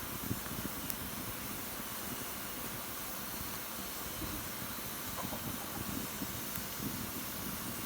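Wood fire burning in a fireplace: a steady hiss with scattered small crackles and pops.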